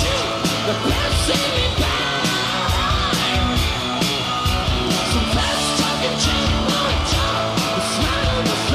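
Live hard rock: electric guitar over a steady drum beat, with a voice shouting or singing along.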